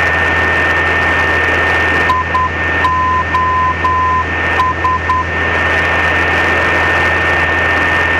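Morse identifier of the Ostend runway 26 ILS localizer, 'IOS' (dot-dot, dash-dash-dash, dot-dot-dot), keyed once as a tone of about 1 kHz. It is heard through the nav radio over receiver hiss and a steady high whistle, with the light aircraft's engine drone underneath.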